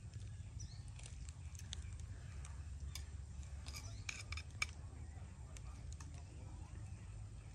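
A spoon clicking and scraping against a plate as food is scooped up, a few sharp clicks clustered about four seconds in, over a low steady rumble.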